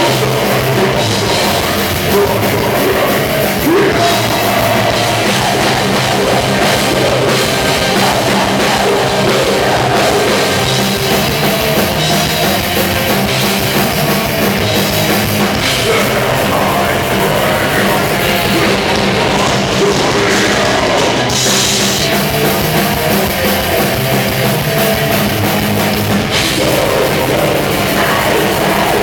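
Symphonic death/black metal band playing live: distorted guitar, drum kit and keyboard, with vocals over them.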